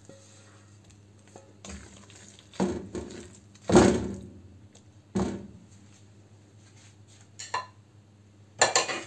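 Cooking utensils knocking and scraping against pans as sautéed vegetables are tipped into thick white sauce in a nonstick wok and stirred in. There are about half a dozen separate clatters, the loudest about four seconds in, over a low steady hum.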